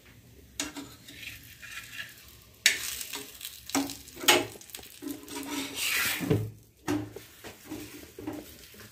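Metal spatula scraping and pressing a thick roti on a hot tawa in a series of irregular strokes, with ghee sizzling under it.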